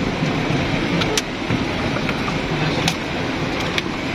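Steady running noise of a car driving on a muddy dirt track, heard from inside the cabin, with rain hitting the windscreen and a few sharp knocks.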